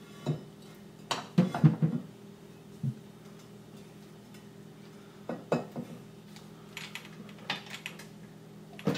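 Scattered metal clanks and clinks of hand tools and bolts against an early Ford banjo rear axle housing as its side cover is bolted up, loudest in a quick cluster about a second and a half in, over a steady low hum.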